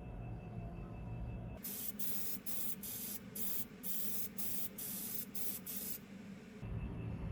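A spray hissing in about ten short bursts in quick succession, starting a second and a half in and stopping about six seconds in; a low steady hum lies under the rest.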